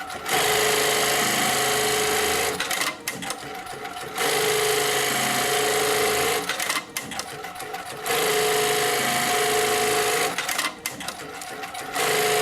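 Mitsubishi Electric industrial pallet-clamp sewing machine running an automatic cycle that stitches multiple tabs. It sews in runs of about two seconds, with a steady whine, and pauses briefly between runs; a fourth run starts near the end.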